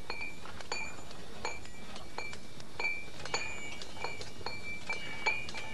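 Hammer striking metal, as in blacksmiths forging: about ten sharp strikes, one every half to three-quarters of a second, each leaving a clear high metallic ring.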